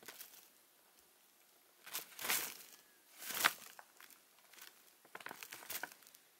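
Hotcake mix shaken out of its package into a bowl: four short bursts of rustling and crinkling, the loudest about three and a half seconds in.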